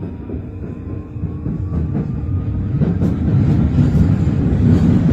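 MF 01 metro train accelerating: the traction motors' whine rises slowly in pitch over a rumble of wheels that grows louder. Wheels clatter over rail joints from about three seconds in.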